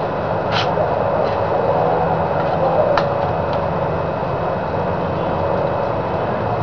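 Steady background noise, a low rumble with hiss, with two faint clicks of the cardboard model being handled, about half a second and three seconds in.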